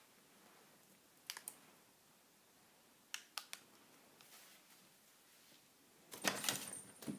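Plastic bag being rustled: scattered sharp crinkles and clicks, then a louder, denser burst of crackling rustle about six seconds in.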